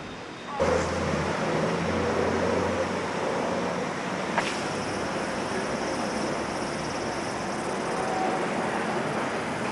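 A steady vehicle rumble with a low hum. It begins abruptly about half a second in, and there is a single sharp click about four and a half seconds in.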